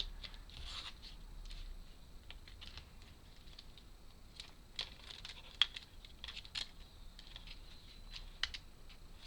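Laser-cut wooden puzzle parts being handled and pressed together: faint, scattered light clicks and taps, with one sharper click a little past halfway.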